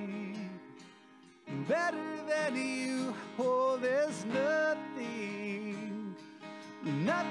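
Recorded music with acoustic guitar and a melody line. It thins out briefly about a second in, then picks up again.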